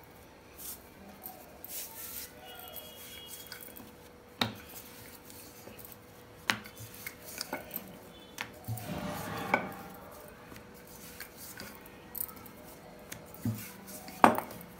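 Wooden rolling pin and hands working wheat dough on a granite countertop: soft rolling and handling noise with scattered sharp clacks as the pin knocks against the stone, over a faint steady hum.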